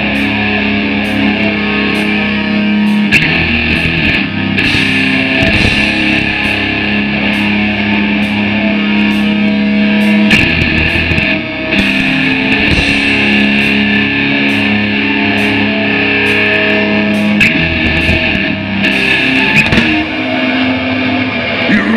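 Death metal band playing live through a loud outdoor PA: heavily distorted electric guitars chugging sustained low riffs over drums and cymbals.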